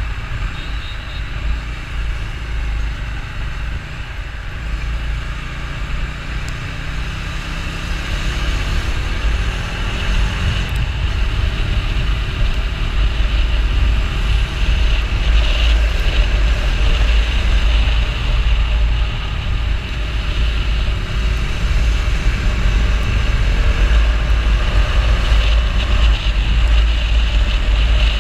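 Bajaj Dominar 250's single-cylinder engine running at road speed, its revs climbing as the bike picks up speed, under a heavy low rumble of wind on the microphone.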